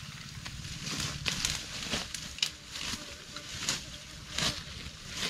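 Dry leaf litter and soil rustling and crunching unevenly as the ground is disturbed, with several sharper crackles.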